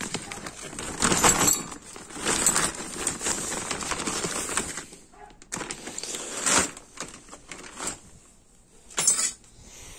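Plastic sheeting rustling and crinkling as it is handled, with light clinks of small metal parts, in several bursts with quieter gaps between.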